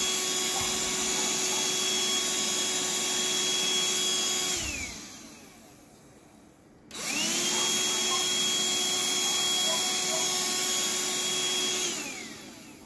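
Vacuum with a cone-shaped nozzle running steadily with a high whine, sucking clipped fur off a dog's shaved belly. It is switched off and winds down about four and a half seconds in, starts again about two seconds later, and winds down again near the end.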